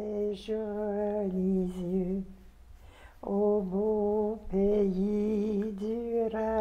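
A woman singing a slow tune in long, held notes, in two phrases with a short pause a little over two seconds in.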